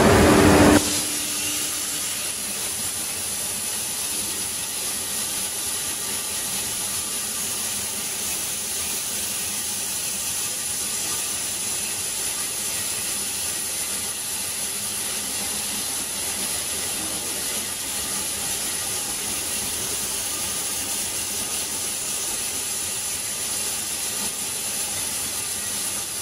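Steady hiss of a CNC cutting torch burning through steel plate, with a thin high whine running over it. A louder sound cuts off about a second in, before the hiss settles.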